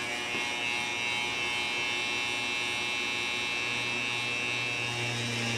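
Electric drill running with a small 5/64-inch bit, drilling a pilot hole into the plastic of a front bumper lip: a steady motor whine, with a lower tone joining about four seconds in.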